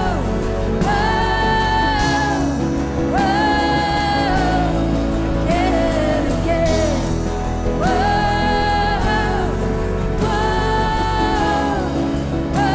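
Live contemporary worship music: a band plays while a singer holds a series of long sung notes.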